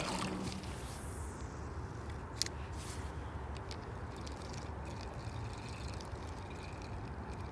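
Steady rush of flowing water released through the dam, with a sharp click about two and a half seconds in.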